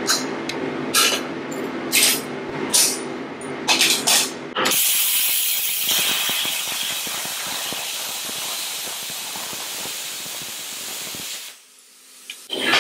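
MIG welder laying a weld on a steel bracket: a loud, even crackling hiss that starts about five seconds in, runs for about seven seconds and cuts off abruptly. Before it, sharp clanks of steel pieces on a steel bench over a steady hum, and the hum and clanks return at the very end.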